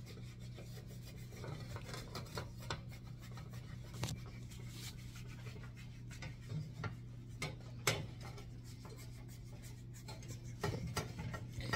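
A utensil scraping and rubbing around the inside edge of a metal bundt pan to loosen a baked cake, in many short strokes with light clicks against the pan. A steady low hum sits underneath.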